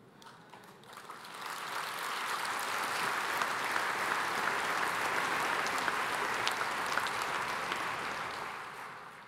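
A large seated audience applauding: the clapping builds over the first couple of seconds, holds steady, then fades away near the end.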